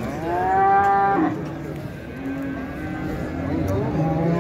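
Cattle mooing at a livestock market. One loud moo lasts about a second at the start, rising at its onset and then holding. Another moo begins near the end.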